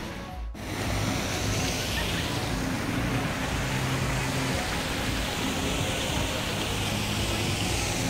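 Steady vehicle road noise with a low hum, broken by a short drop-out about half a second in.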